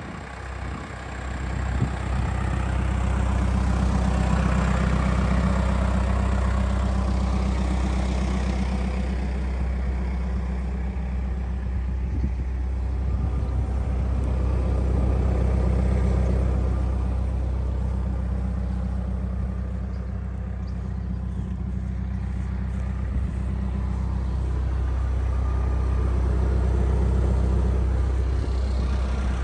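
Case 590N backhoe loader's 110 hp FPT four-cylinder diesel engine running steadily, a low hum whose loudness swells and eases slowly.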